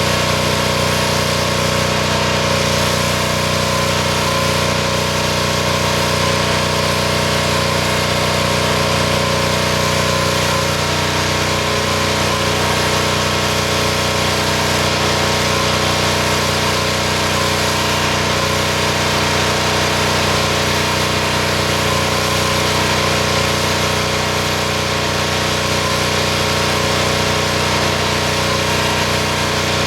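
Pressure washer engine running steadily under load, with the hiss of the high-pressure water jet spraying.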